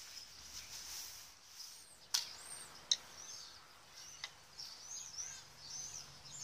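Small birds chirping faintly in the background, with sharp clicks about two and three seconds in.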